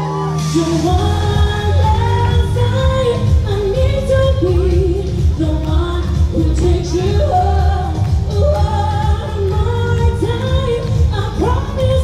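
Pop song with singing over a heavy bass beat, the bass coming in about a second in.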